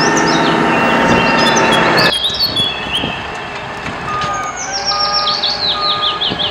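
A heavy truck's engine running steadily, which cuts off abruptly about two seconds in; from about four seconds, a vehicle's reversing alarm beeps three times, evenly spaced. Birds chirp throughout, with a quick falling run of chirps near the end.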